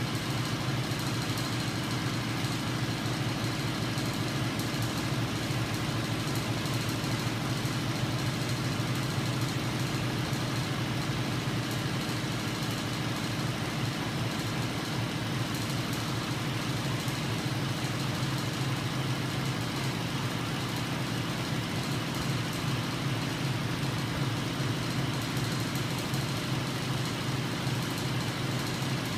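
A homemade rotary rig of small DC motors and spinning arms on an aluminium frame, running at a steady speed: a continuous mechanical whir and hum that does not change.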